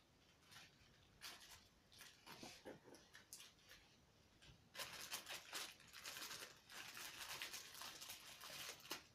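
Plastic parcel packaging being cut open with scissors and torn, with scattered crinkles and snips at first, then a dense run of crackling and rustling from about five seconds in.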